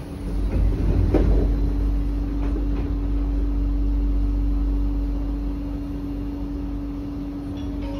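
Electric sliding doors of a C151A metro train closing, loudest about a second in, followed by the steady hum and low rumble of the train standing at the platform.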